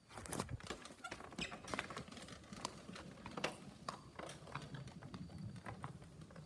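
Footsteps on a hard floor, an uneven run of sharp taps about two or three a second, as someone walks through an empty room.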